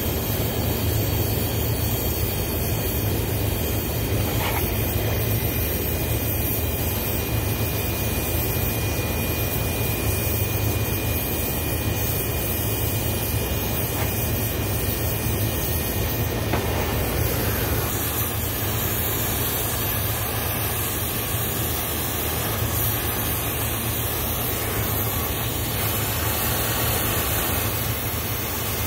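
Steady rumbling, hissing noise that stays the same throughout, with no single event standing out.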